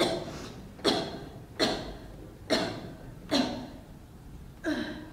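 A person coughing, five short coughs about a second apart.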